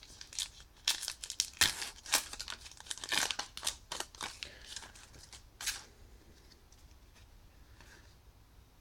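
The foil wrapper of a 2015 Topps Allen & Ginter baseball card pack being torn open and crinkled by hand: a quick run of sharp crackles that stops about six seconds in, then faint handling of the cards.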